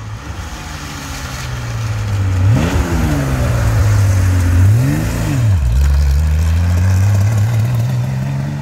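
Classic Porsche 911 rally car's air-cooled flat-six driving past close by, getting louder as it approaches, its revs swinging up and back down twice in the middle, then fading as it pulls away.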